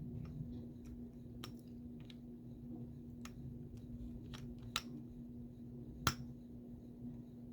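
Scattered small metallic clicks and taps from tools working on an American 1100 padlock as it is being taken apart, the sharpest about six seconds in, over a steady low hum.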